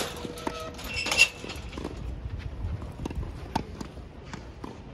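Tennis rally on a hard court: a serve struck with a sharp pop of the racket strings about a second in, then the ball bouncing and being hit back and forth in uneven knocks, with shoes scuffing on the court surface.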